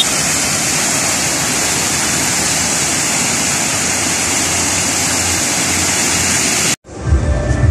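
Fountain water jets splashing steadily into a pool, a constant rushing hiss that cuts off suddenly almost seven seconds in. Music with a heavy bass comes in right after, near the end.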